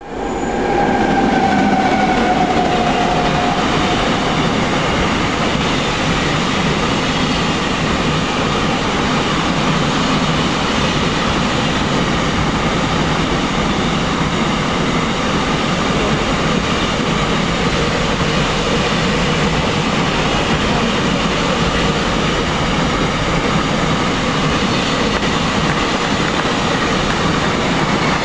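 Container freight train rolling past close at speed: a loud, steady noise of wagon wheels running on the rails, with a faint tone sliding down in pitch in the first few seconds.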